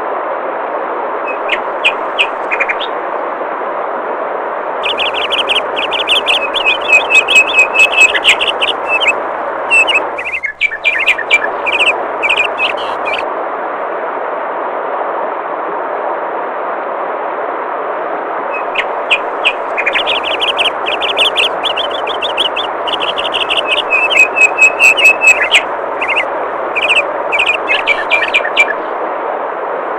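Steady rush of flowing water with songbirds singing over it in two long bouts of rapid high chirps and trills, one starting about five seconds in and another about twenty seconds in.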